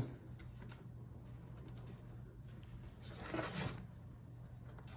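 Faint scraping and light ticks of a pry tool being worked into the seam between a laptop's bottom case and palmrest, with one brief scrape about three seconds in, over a low steady hum.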